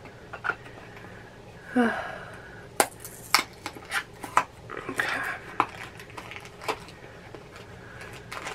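Small cardboard mystery pin boxes and their packaging being opened and handled. A brief scrape comes about two seconds in, then a string of sharp clicks and a short rustle around the middle.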